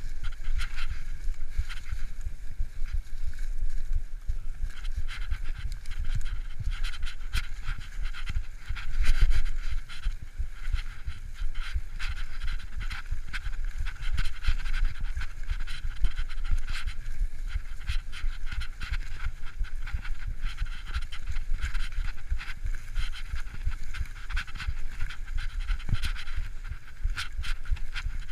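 Mountain bike ridden fast over a leaf-covered dirt trail: a steady rumble and constant clattering of tyres and frame over leaves and bumps, with a harder jolt about nine seconds in. The rider's heavy breathing sounds throughout.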